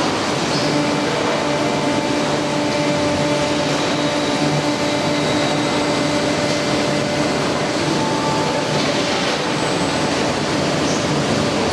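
Running machinery of an automated bottle palletizing line: a steady, loud rush of drives and conveyors. Over it runs an even motor whine that fades out about three-quarters of the way through.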